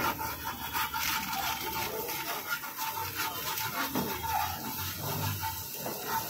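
Metal spatula repeatedly scraping and clacking on a flat iron griddle as egg masala is chopped and turned, in quick irregular strokes.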